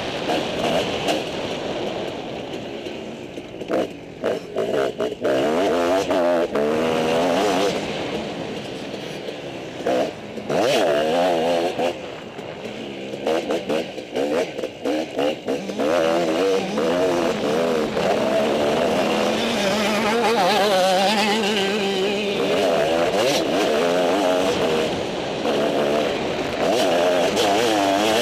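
Motocross dirt bike engine heard from a helmet-mounted camera, revving up and down as the bike rides the track's jumps and corners. Its pitch keeps rising and falling, with several short sudden drops in level where the throttle is shut off.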